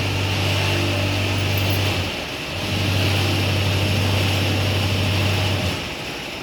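Vibratory road roller running on hardcore, with a steady low hum that drops out for a moment about two seconds in and stops shortly before the end, over the engine's steady noise.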